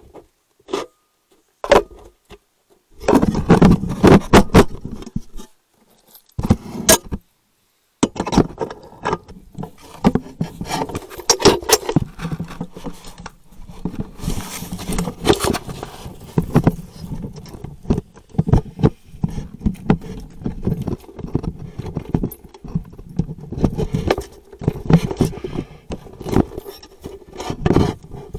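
Handling noise on a trail camera: cloth rubbing, scraping and knocking against the camera body, with many sharp clicks, in patches at first and then almost without a break.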